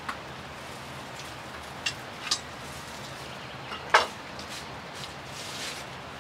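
Steady hiss of rain, with a few sharp clicks and crackles from dry straw tinder and kindling being handled at a stone hearth; the loudest click comes about four seconds in.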